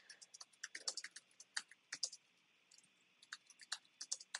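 Typing on a computer keyboard: a fast, uneven run of faint keystrokes as a short phrase is typed.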